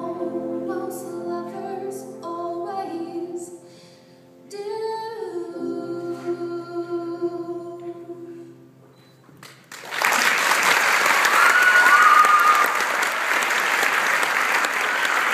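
A woman singing the last phrases of a solo song over a quiet accompaniment, ending about nine seconds in. Then loud audience applause breaks out and keeps going, with one short high call from the crowd over it.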